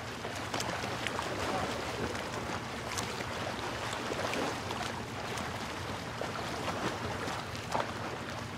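Outdoor waterfront ambience: steady wind and water noise with scattered light clicks and knocks over a faint low hum.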